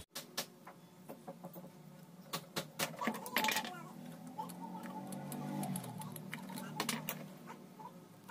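Faint scattered clicks and light taps of a circuit board and soldering iron being handled while a replacement trimmer potentiometer is soldered in, over a low steady hum.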